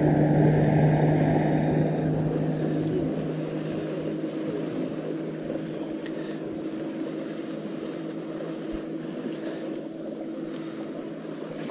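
Motorboat engine running steadily with an even hum, slowly fading as the boat moves away.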